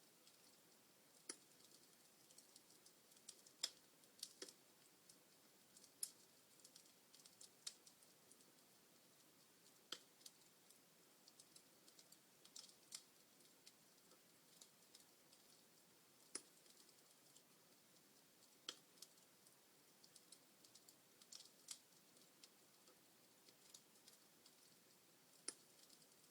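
Log fire in a fireplace crackling: irregular sharp pops and snaps, a few much louder than the rest, over a faint hiss.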